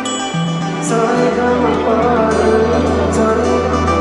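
Background music: a slow, soft instrumental with held chords over a sustained bass note, the chord changing about a third of a second in and again just after a second in.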